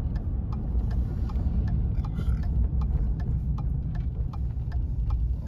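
Car driving, heard from inside the cabin as a steady low road and engine rumble. Over it runs a regular ticking of about three clicks a second, typical of the turn-signal indicator before a turn.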